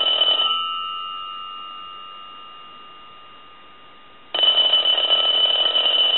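Stromberg-Carlson 1212 rotary desk telephone's replacement bell ringing during its final ring test. One ring cuts off about half a second in, and the bell's two tones die away slowly for nearly four seconds. The next ring then starts abruptly at full loudness, showing the bell now rings properly.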